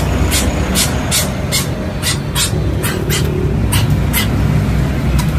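Scissors snipping snails for bird feed: sharp clicks, two or three a second, irregularly spaced, over a steady low rumble.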